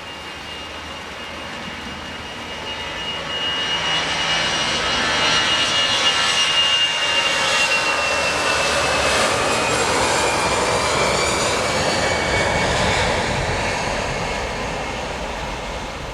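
Airbus A320 jet engines on a takeoff departure, passing by: the engine noise swells, peaks for several seconds and fades. A high whine slowly falls in pitch as the plane goes past.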